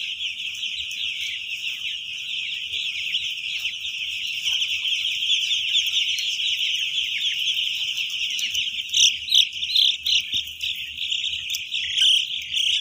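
A huge flock of young broiler chicks peeping all at once: a dense, continuous chorus of high, quickly falling cheeps, with a few louder single peeps standing out about nine seconds in and near the end.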